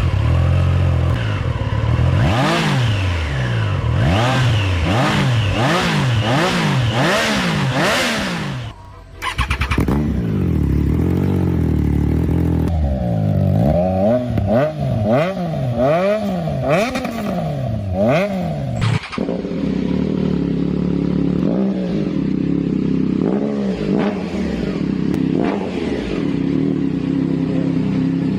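Triumph Daytona 675R's 675 cc inline-three engine revved through aftermarket exhausts, its pitch climbing and falling about once a second in quick throttle blips. The sound changes abruptly about nine seconds in and again about nineteen seconds in, as one exhaust clip gives way to the next; the last part is a steadier running note with occasional smaller blips.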